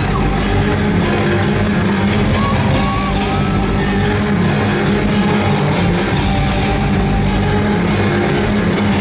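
Loud rock music with electric guitar and drums, played over an arena's sound system and picked up from the stands.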